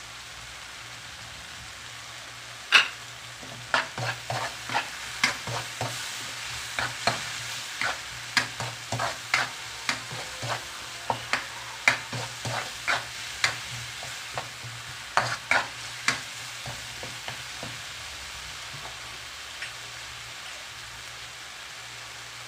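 A metal spoon stirring a thick tomato-and-onion masala frying in an aluminium wok. It clinks and scrapes against the pan about twice a second from about three seconds in until about seventeen seconds, over a faint sizzle and a steady low hum.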